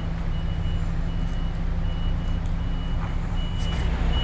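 Truck's reversing alarm beeping: a high tone in short, evenly spaced beeps, a little more than one a second, over the steady low drone of the lorry's engine as it reverses.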